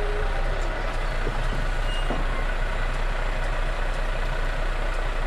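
Heavy diesel engine running steadily with a low, even rumble.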